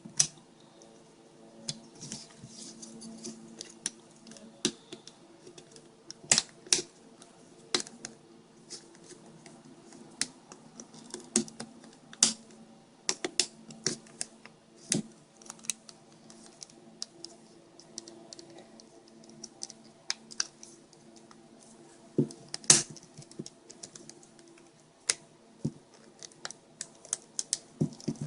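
Irregular light clicks and taps of small plastic parts being handled and fitted together during hand reassembly of a GPS unit, with a faint steady hum underneath.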